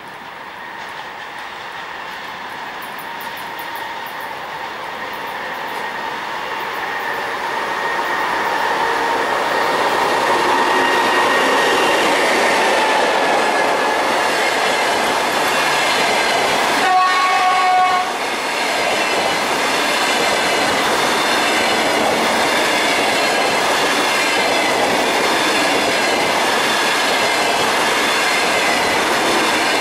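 EP20 electric locomotive approaching and passing at speed, the sound growing louder over the first several seconds, then a long double-deck passenger train rolling by with steady wheel-on-rail noise. A little past halfway a train horn sounds once, for about a second.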